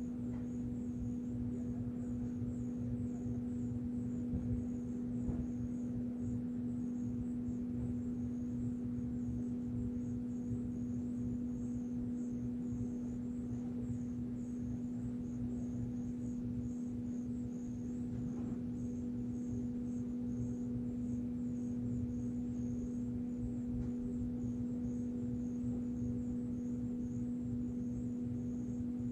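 A steady low hum holding one pitch without a break, with a faint rapid high warbling above it.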